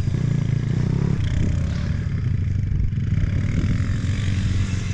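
Engines of off-road motorbikes and quad bikes being ridden around close by, running continuously with a wavering engine note.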